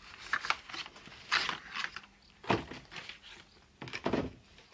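Packaging being handled and opened by hand, in several short rustling, scraping bursts.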